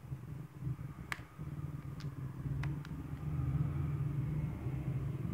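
Four small, sharp clicks of a plastic fitness band and its strap being handled and tapped by fingers, over a low steady rumble that grows louder a little past halfway.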